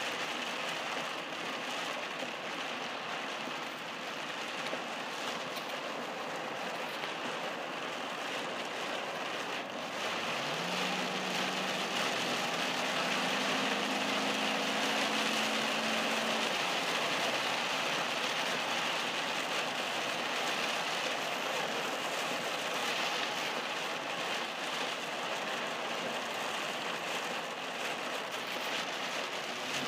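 Heavy rain hitting a moving car's windshield and body, heard from inside the car, with steady wet-road tyre noise. About a third of the way in, a low hum rises in pitch, holds for several seconds, then fades.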